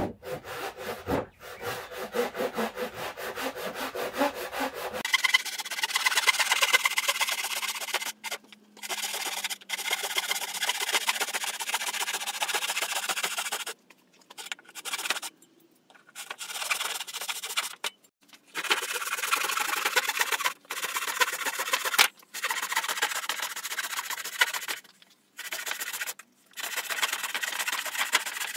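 Hand saw ripping a long wooden board lengthwise, stroke after stroke. It starts with quick short strokes. From about five seconds in, it settles into longer runs of rasping strokes, broken by several short pauses.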